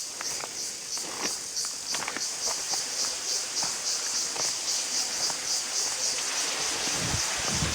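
High-pitched forest insect chorus pulsing steadily about five times a second, with scattered footsteps on a trail. A rushing noise swells near the end.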